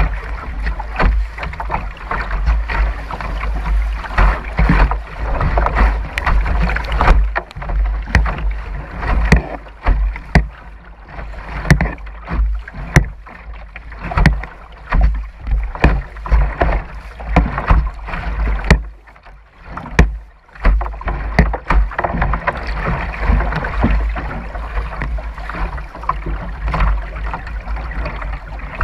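River water rushing and splashing against a plastic kayak's bow running through choppy riffles, with frequent sharp slaps and knocks on the hull over a steady low rumble. There is a short lull about two-thirds of the way through.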